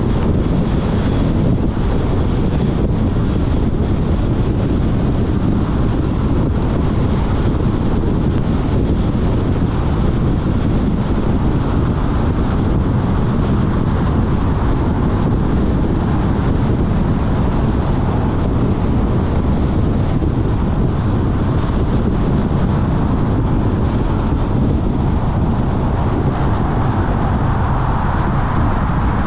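Steady wind buffeting the microphone: a dense, unbroken low rumble with no distinct events.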